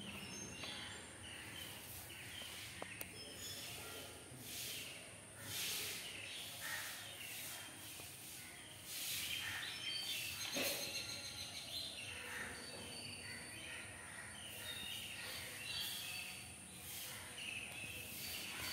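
Faint ambient sound of small birds chirping, short high chirps scattered throughout, with a few soft hissing swishes now and then.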